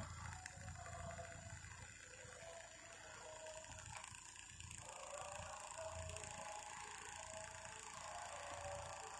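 Several small battery-powered toy fans whirring, with a thin steady whine. About halfway through another fan is switched on and the whirring grows a little louder.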